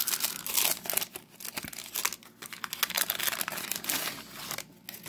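A 1991 Topps baseball card pack's wrapper being torn open and crinkled by hand: a dense run of crackling that stops near the end.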